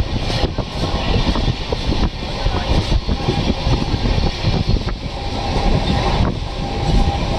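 Express passenger train running at speed, heard from inside the coach by the window: a steady rumble of wheels on track mixed with rushing air, a few faint clicks of the wheels over the rails, and a thin steady whine joining about five seconds in.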